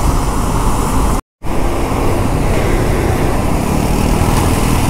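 Royal Enfield motorcycle engine running steadily while riding on the road, with wind noise on the camera microphone, whose foam windscreen is missing. The sound cuts out completely for a split second about a second in.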